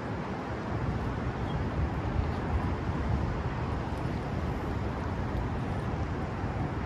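Wind buffeting the microphone as a low, fluttering rumble over a steady outdoor rush.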